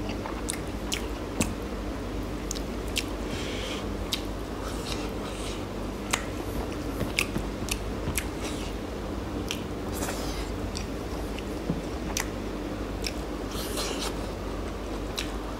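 A person chewing and biting mouthfuls of meat and rice close to the microphone, with frequent irregular wet mouth clicks and smacks.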